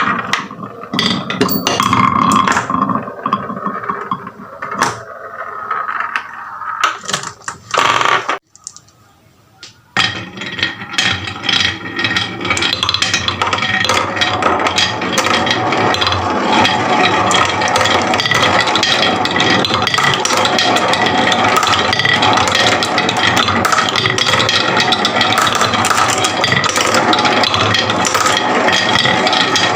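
Marbles clattering down a wooden marble run: scattered clicks and rattles, a brief near-silent gap about eight seconds in, then a dense, steady clatter of many marbles.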